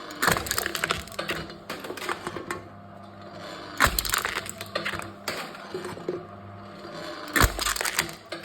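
Aluminum drink cans being crushed by a crushing machine: three heavy crunches about three and a half seconds apart, with crackling of crumpling metal between them over a steady low hum.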